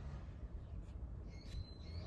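A bird calling once, a short high call near the end, over a steady low rumble, with a few faint clicks.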